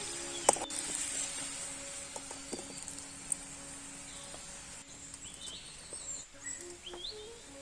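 Birds chirping over a steady high hiss, with a faint held note from background music and a sharp click about half a second in.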